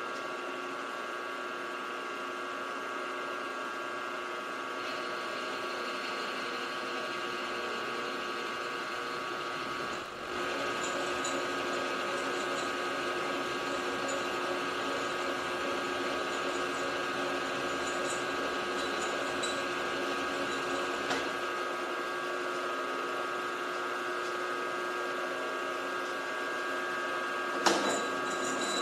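Milling machine spindle running with a steady whine while an end mill cuts a slot in a steel blank, fed back and forth along the slot. There is a short dip about a third of the way through, after which the cutting sounds a little louder, and a sharp click near the end.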